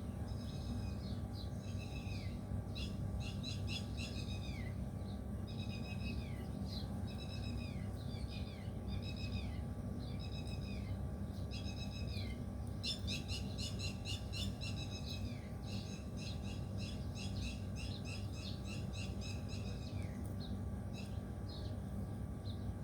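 Songbird singing repeated short phrases of quick high chirps, each phrase ending in a falling note, growing sparse near the end, over a steady low rumble.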